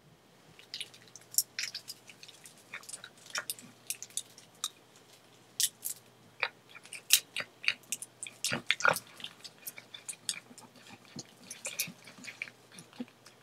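Fox squirrel gnawing on a nut: an irregular run of sharp crunches and clicks.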